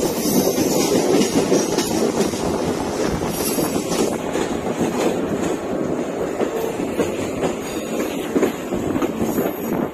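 Mumbai suburban EMU local train running slowly, heard from on board: a steady rumble of steel wheels on the rails with clickety-clack over joints and points, and a couple of short high squeals from the wheels.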